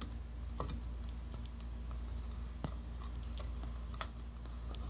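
Scattered light clicks and taps of a shower head and its hose fitting being handled, over a steady low hum.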